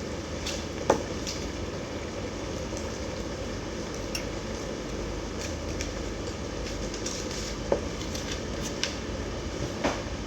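Tomato, onion and spices cooking in a pot with a steady frying noise, while a spoon stirring them clinks sharply against the pot a few times, loudest about a second in.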